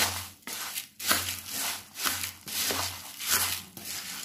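Dry puffed rice (bhelpuri mix) being stirred and tossed in a bowl, a crisp rustling crunch with each stroke, a little under two strokes a second.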